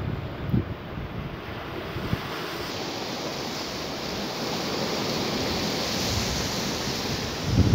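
Sea surf washing in among shoreline rocks: a steady rushing hiss that grows louder and brighter after about three seconds, with wind buffeting the microphone.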